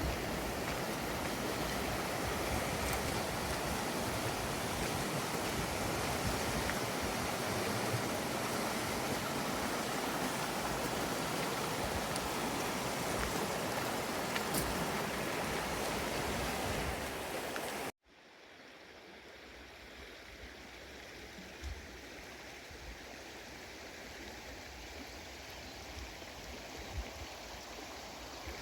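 Mountain stream rushing, a steady water noise that cuts off abruptly about two-thirds of the way through, then returns quieter with a few low bumps.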